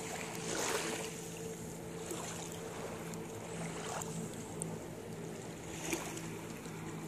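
A steady engine drone under wind and surf-like noise, with a few brief knocks, the clearest about a second in.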